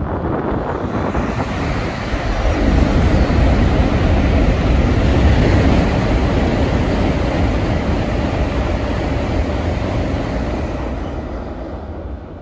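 N700-series Shinkansen bullet train passing at speed over a steel railway bridge. The rushing noise and deep rumble build about two seconds in, stay loud for several seconds, then fade away near the end.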